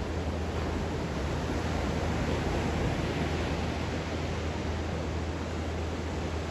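Atlantic surf breaking in low rows and washing up a sandy beach: a steady hiss of waves, swelling slightly about two seconds in.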